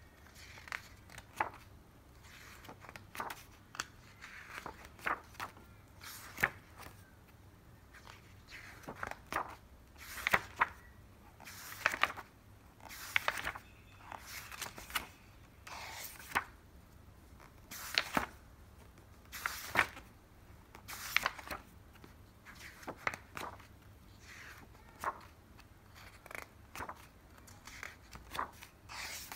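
Pages of a large hardcover book being turned one after another, each turn a short papery swish or flap, about one every second or two.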